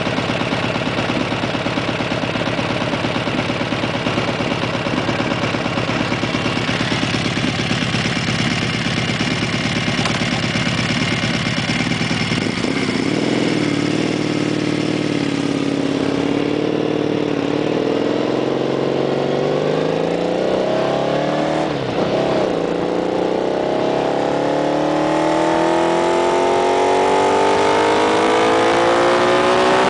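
Honda VF1000R's V-four engine running at a low, steady speed, then rising and falling in a few short swells about halfway through, then climbing steadily in pitch for the last several seconds.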